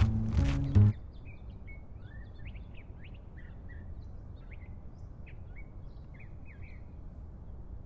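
A percussive music track, composed from sounds recorded on campus, cuts off abruptly about a second in. It leaves outdoor ambience: small birds chirping on and off over a steady low background rumble.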